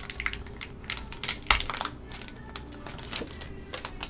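Wrapper of a sealed hockey card pack being torn open and crinkled by hand: irregular crackling and tearing, loudest about a second and a half in, thinning to a few scattered crackles.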